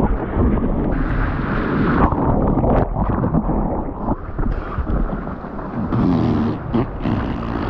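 Ocean whitewater rushing and splashing as a surfer rides a small breaking wave and goes down in the foam. It is heard up close, with water washing over a camera mounted on the surfboard.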